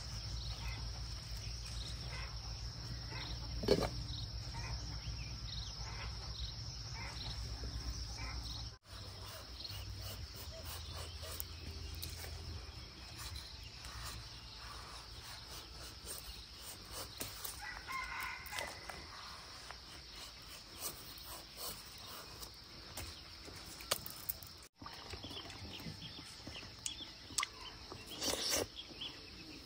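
A rooster crows once, a little past the middle, over steady outdoor background noise. A sharp knock sounds a few seconds in, and there is a short noisy burst near the end as ripe papaya is bitten into.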